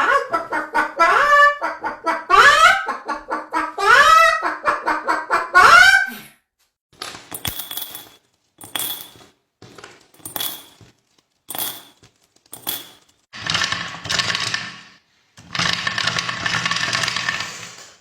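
A pet bird calling in a rapid run of honk-like cries that rise in pitch, for about six seconds. After that come short harsh bursts about once a second, then two longer stretches of rasping noise near the end.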